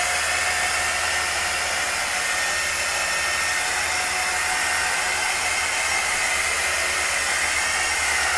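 Electric heat gun blowing steadily, its fan motor giving a faint high whine, heating the wet acrylic pour paint on the canvas.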